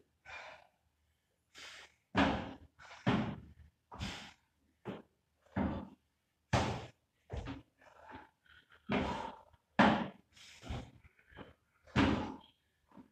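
Feet landing on a plyo box and back on the gym floor in repeated box jumps, a steady run of thuds about one to two a second.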